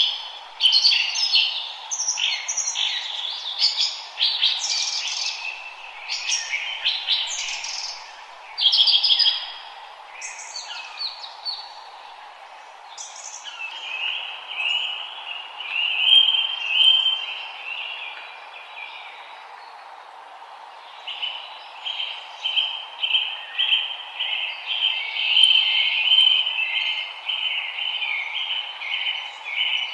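Several songbirds singing. In the first half they give quick, varied chirps and whistles; after that a rapid, even trill runs on, pausing briefly once. A steady low hiss sits underneath.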